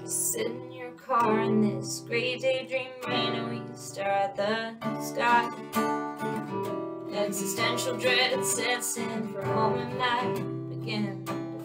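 Acoustic guitar strummed in steady chords, with a woman singing over it in a wavering voice.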